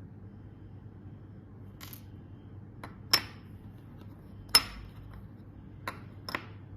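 A handful of sharp clicks and clinks of hard objects knocking together, the loudest about three and four and a half seconds in, over a low steady hum.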